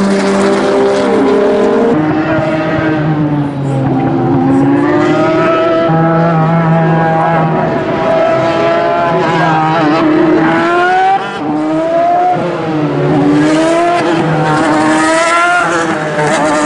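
Racing car engines on a circuit. For about two seconds there is a steady engine note from a passing 1960s racing coupé. Then a racing engine's pitch rises and falls over and over as cars drive through a corner.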